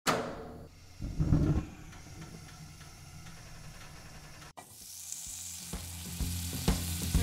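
Intro logo sound effects: a sudden hit at the start, a low rumbling burst about a second in, then a steady hiss. Music with a regular beat fades in over the last two seconds.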